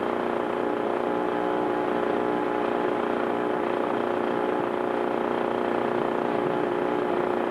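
Steady, even drone of a running engine with several held tones, no change in speed.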